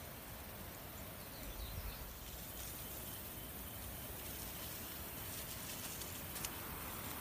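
Outdoor ambience: a steady faint hiss with a few faint bird chirps about a second in, a brief low rumble just after, and a single sharp click near the end.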